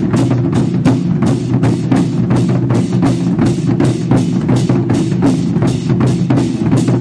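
A troupe of large barrel drums beaten together in a steady, even rhythm of about three strokes a second, over a constant low booming rumble.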